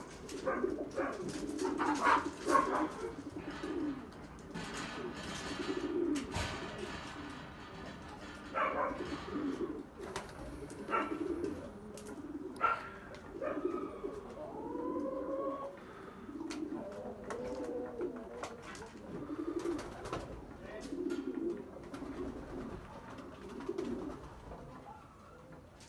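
Doberman puppies and adult Dobermans grumbling and play-growling as they wrestle, a near-continuous low rumbling chatter. There are a few higher whines and scuffling clicks.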